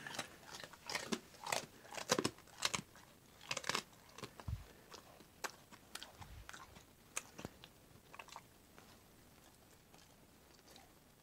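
Rhodesian Ridgeback crunching and chewing a hard dog treat, with loud irregular crunches that thin out after about halfway and stop near the end.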